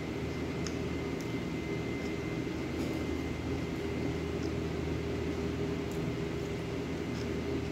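A steady low machine hum with a faint, steady high-pitched whine, and a few faint, soft clicks scattered through it.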